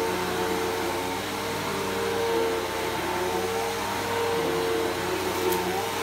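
Bagless upright vacuum cleaner running steadily while being pushed over carpet, its motor pitch shifting slightly up and down.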